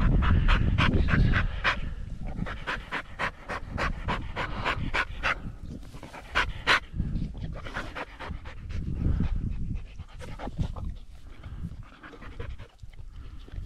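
Hunting dog panting hard, quick breaths about four a second, loudest in the first half and easing off later.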